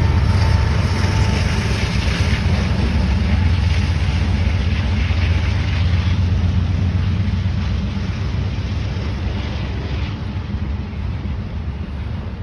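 Norfolk Southern intermodal freight train rolling past: a steady low rumble of the train on the rails that slowly fades as the locomotives pull away.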